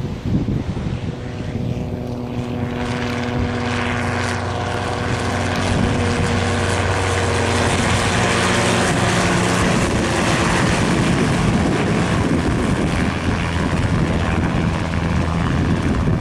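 Small helicopter flying low over open water, its rotor and engine a steady drone that grows louder over the first few seconds, then holds steady.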